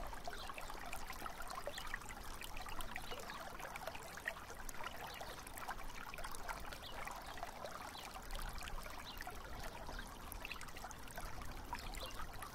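Faint trickle of shallow river water at the gravel bank, with many small drips and ticks scattered through it.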